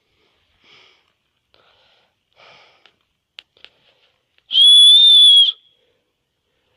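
A person's loud, steady high-pitched whistle, held for about a second around the middle, after a few faint breaths and two small clicks.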